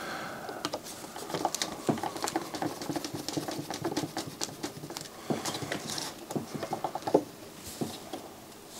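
Small, irregular clicks, ticks and scrapes of a screwdriver working screws out of a MiniDisc deck's plastic-and-metal loading mechanism, with the parts handled and shifted in the hand.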